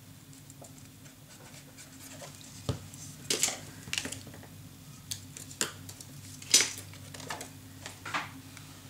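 Scrapbook paper and card being handled on a tabletop: a string of short, sharp rustles, taps and clicks, the loudest about two-thirds of the way through.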